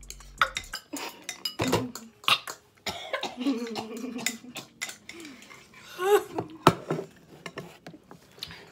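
Utensils clinking and scraping against bowls as noodles are eaten, in many short sharp clicks. A few short coughs and throat noises come in between, the longest a little past a third of the way in.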